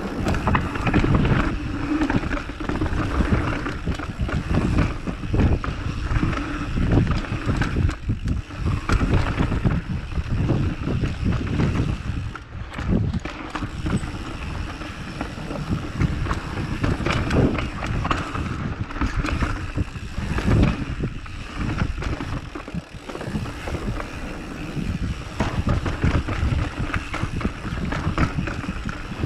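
Wind buffeting the microphone in irregular gusts, over a rough rumbling and rattling of movement.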